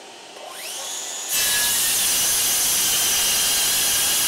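Bosch GKS18V-25GCN 18 V brushless cordless circular saw, set to speed 6, spinning up with a rising whine. From about a second in its blade cuts steadily along a board.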